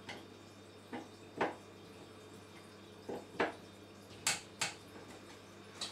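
Screwdriver working the brass terminal screws of a cooker connection unit: about seven short, sharp clicks in irregular pairs as the screws are tightened down on the cable conductors.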